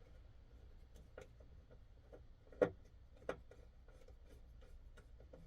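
Faint, scattered clicks and taps of small metal parts being handled, with two sharper clicks a little past halfway, as a wire pocket clip and its screw are fumbled into place on a folding knife handle.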